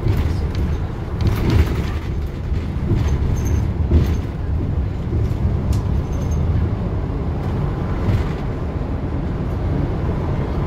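City bus in motion, heard from inside: a steady low rumble of engine and road noise, with a few short rattles and clicks.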